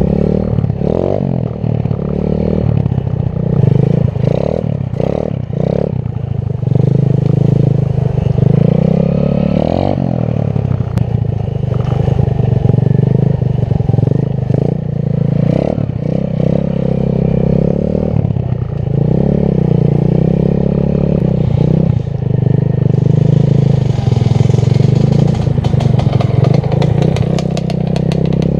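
Small 125cc engine of a home-built quad running loudly, its revs rising and falling again and again.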